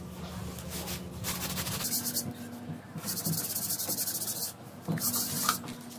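Gritty scraping of a plastic spatula against a concrete bowl and the plastic mould as wet cement mix is scooped and packed in, in two spells, the first about two seconds long and the second shorter.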